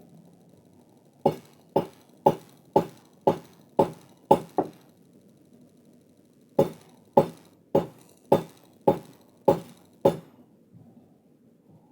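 Forging hammer blows on the steel of a crowbar being shaped: a run of about eight even strikes, roughly two a second, a short pause, then about seven more.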